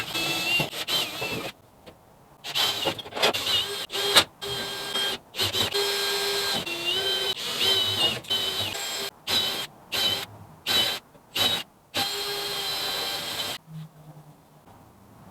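Electric power drill running in repeated short bursts, starting and stopping over and over, its whine wavering in pitch as it loads up; it stops near the end.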